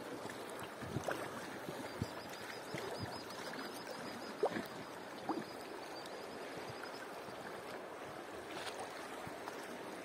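River water lapping and gurgling around an inflatable boat drifting downstream, steady and low, with a few short splashes.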